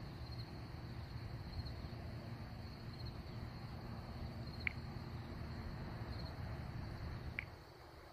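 Crickets chirping in a faint, steady high trill over a low rumble that drops away near the end, with two brief sharp ticks in between.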